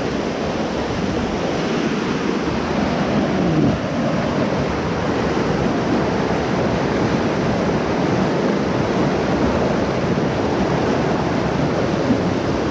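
Mountain creek rushing over rocks in a small whitewater cascade: a steady, loud roar of falling water.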